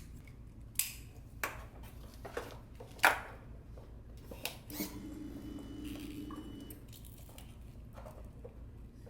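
Sharp plastic and metal clicks from handling wiring connectors on a Honda CBR600RR, the loudest about three seconds in. Then, about five seconds in, a steady hum lasts about two seconds: the fuel pump priming now that the tip-over sensor circuit is jumped.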